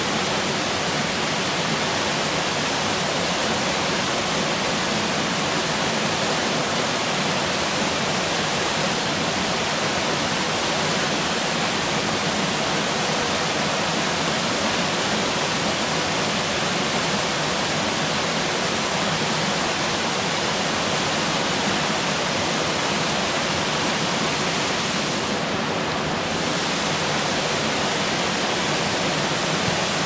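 Small forest waterfall pouring into a rock pool, a steady rushing splash of falling water.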